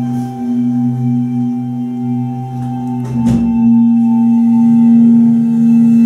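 Slow improvised duo of clarinet and cymbal: long steady held tones over a sustained ringing cymbal drone. About three seconds in a sharp attack sounds, and the drone then swells louder.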